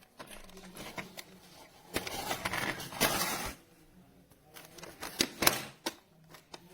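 Plastic parts of a Casdon Dyson toy cordless vacuum clicking and clattering as it is handled, a run of sharp clicks and knocks with a brief rustle of noise in the middle.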